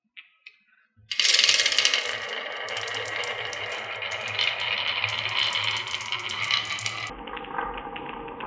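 Marbles rolling and clattering down a wooden HABA marble run: a couple of light clicks, then about a second in a sudden dense rattle of rapid clicks that runs for about six seconds, turning duller near the end.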